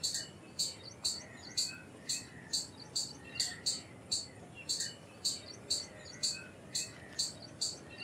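Indian palm squirrel calling: a sharp, high chirp repeated steadily about two to three times a second, with softer, lower twittering behind it.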